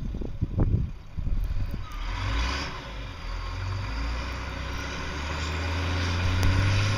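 Vehicle engine running under heavy load, pushing a great weight of snow with its wheels getting no traction; a steady low hum that grows louder toward the end, after a few low knocks about a second in.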